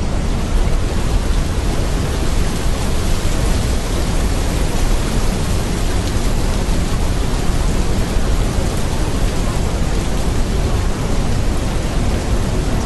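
Steady, even rushing noise, like heavy rain or pink noise, at a constant loud level. It is the masking track of a subliminal audio, laid over affirmations that are not meant to be heard.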